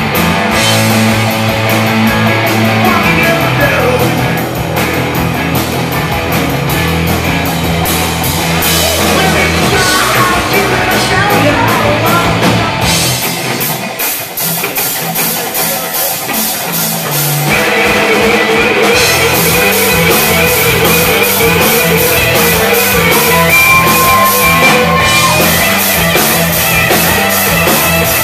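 Live rock band playing: electric guitars over a steady drum-kit beat. About halfway through the low end drops away for a few seconds, then the full band comes back in, with a held guitar note a little later.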